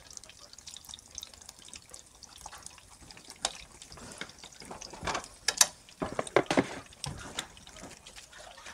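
Fish cakes shallow-frying in hot oil in a pan, sizzling with a steady crackle, with a cluster of louder pops and spits about five to seven seconds in.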